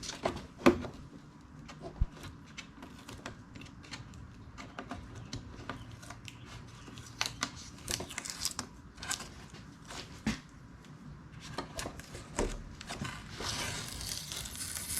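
Masking tape being peeled off cured Plasti Dip on a plastic wheel cover: scattered small crackles and tearing sounds as the rubbery coating pulls away at the edge, with a longer crinkling tear near the end.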